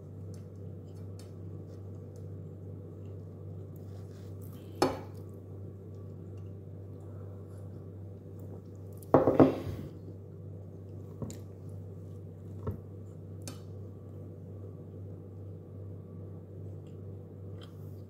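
A few sharp knocks and clinks of a plate and cutlery, the loudest a short cluster about halfway through, over a steady low hum.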